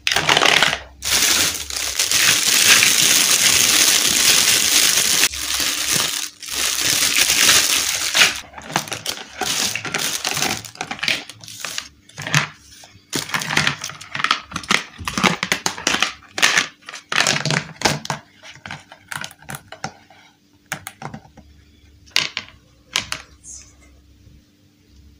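Plastic toy building blocks and parts being handled: a dense stretch of rustling and clattering plastic for the first several seconds, then scattered clicks and knocks as pieces are set down and pressed together, growing sparser toward the end.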